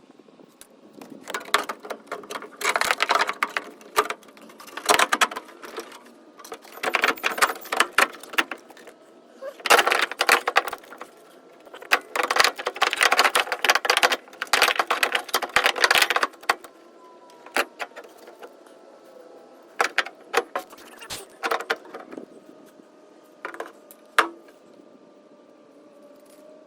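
Metal clinking and rattling from hand tools and a steel car door hinge being worked into place, coming in bursts of rapid clicks a second or two long. After about 16 seconds only scattered single clicks remain.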